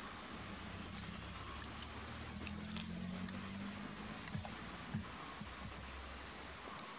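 Forest ambience in a tree canopy: a high chirping and buzzing of insects or birds over a low steady hum, with a few short sharp clicks in the middle.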